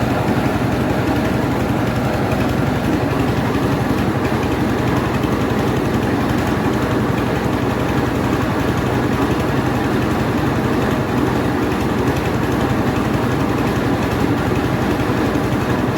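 Mobile rice milling machine running steadily: its engine and milling machinery keep up an even drone with a dense rattle.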